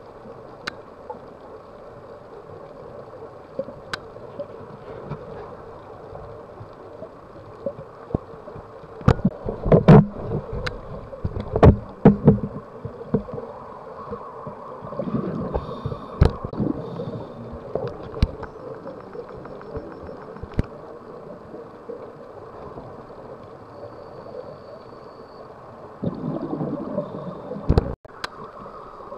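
A scuba diver's regulator breathing, heard underwater through the camera: muffled, irregular bursts of exhaled bubbles, loudest about ten to thirteen seconds in and again near the end, over steady underwater noise with scattered sharp clicks.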